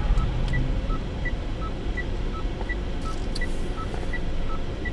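Short electronic beeps alternating between a high and a lower tone, about three a second, over the steady rumble of a moving car heard from inside.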